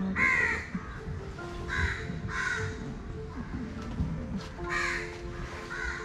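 Crows cawing: about five harsh caws, the loudest right at the start, with the others around two seconds in and near the end. Soft background music with long held notes runs beneath them.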